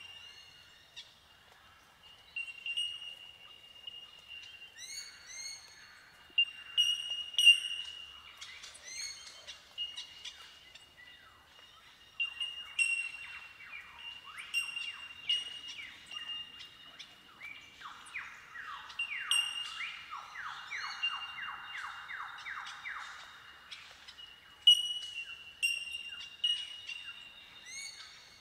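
Bell miners (bellbirds) giving their ringing, bell-like 'tink' calls, many birds overlapping in an incessant windchime-like chorus. From about the middle, a fast run of lower, falling notes, about three a second, joins in for several seconds.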